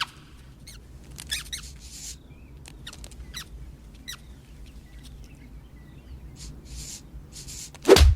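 Animated mouse squeaking and scampering: scattered short high squeaks and light pattering steps. Near the end comes one loud, sudden, downward-sweeping hit as the predator pounces.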